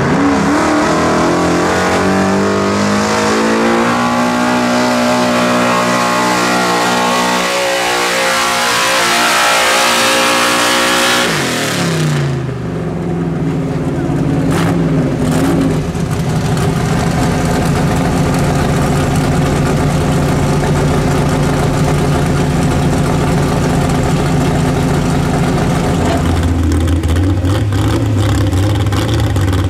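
Gas-engined 4WD pulling truck at full throttle under load, its engine pitch climbing and then held high for several seconds. About twelve seconds in the pitch drops sharply as the throttle comes off, and the engine runs on steadily at a lower speed.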